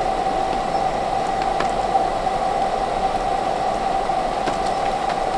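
Canister gas lantern burning with a steady, even hiss from its lit mantle, with a few faint ticks.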